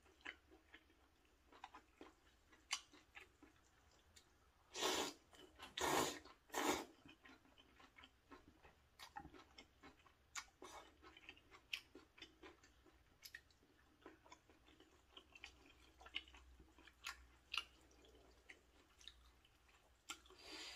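A person eating rosé maratang noodles close to the microphone: soft chewing with many small wet clicks, and three loud slurps of noodles about five to seven seconds in.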